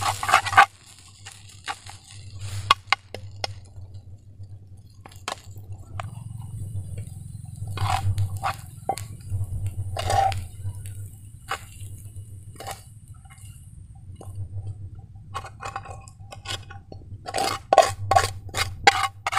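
Utensil scraping and clinking against a frying pan and plate as fried rice is served out of the pan, with a run of quick taps near the end, over a steady low hum.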